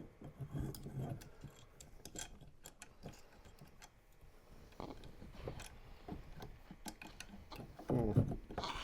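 Faint, irregular clicks and ticks of small screws and metal parts being handled and fitted by hand.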